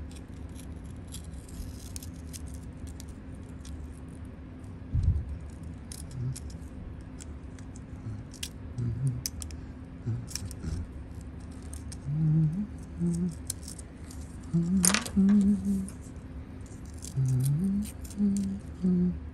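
Hobby knife slitting and peeling open a small paper-and-foil watch-part packet: light scratching, crinkling and small clicks, with one sharp click about fifteen seconds in. From about twelve seconds in a man hums short low notes.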